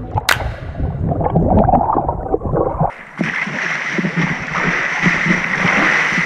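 Muffled underwater rumble and gurgle of water moving around a submerged camera. About three seconds in the camera breaks the surface and the sound turns abruptly to bright splashing and spray in the pool.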